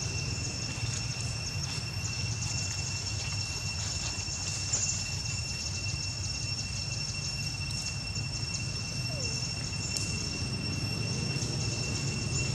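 Forest ambience dominated by a steady high-pitched insect drone of two constant tones, over a steady low rumble.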